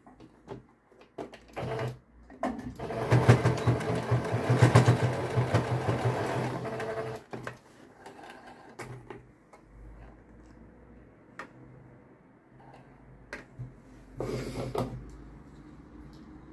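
Sewing machine stitching across the middle of a folded fabric bow: a brief burst, then about five seconds of steady running, and another short burst near the end, with light handling clicks in between.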